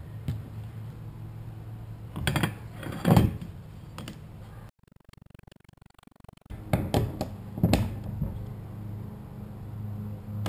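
Scattered clicks and knocks of a fuel sender module and its metal mounting bolts being handled and set onto a plastic fuel tank, the loudest knock about three seconds in, over a steady low hum. The sound drops to near silence for about two seconds midway.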